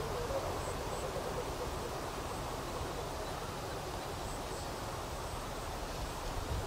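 Sanu, the taut-string hummer on a kite, giving a faint wavering drone in the wind, with low wind rumble underneath.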